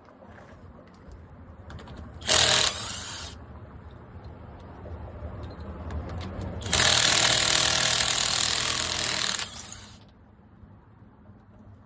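Impact wrench running in two bursts, a short one about two seconds in and a longer one of about three seconds starting around seven seconds in, loosening the front wheel lug nuts.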